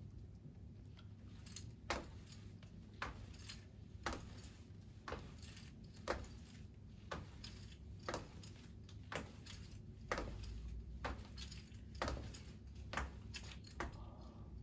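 Slow, even footsteps on a hard floor as two people step on the spot in a balance exercise, about one step a second.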